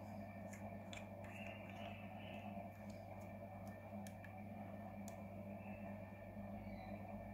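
Faint scattered clicks and taps as an e-cigarette tank is handled and fitted onto its box mod, over a steady low hum.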